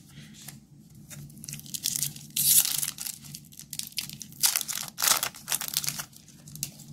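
A trading card booster pack's foil wrapper being torn and crinkled in several crackling bursts, the loudest about two and a half seconds in.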